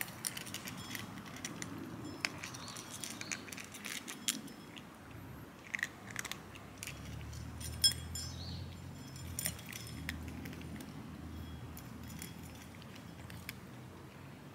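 Cats eating from shallow metal dishes: chewing and lapping, with many small clinks and ticks of the dishes, the sharpest clink about eight seconds in.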